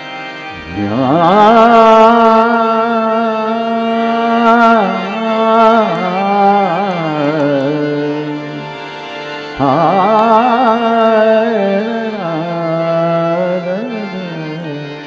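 Male voice singing long, ornamented vowel phrases of a hori thumri in raag Mishra Kafi over harmonium. The first phrase glides up into a held note about a second in. After a short break about nine seconds in, a second phrase starts abruptly.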